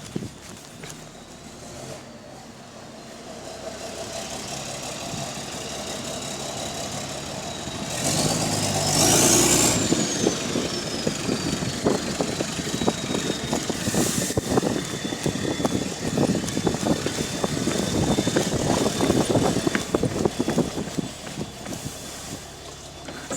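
Diesel bus engine running and pulling away, louder from about eight seconds in, with a high whine that climbs and then falls away. Through the rest there is a rapid puffing and rattling from a leaking exhaust.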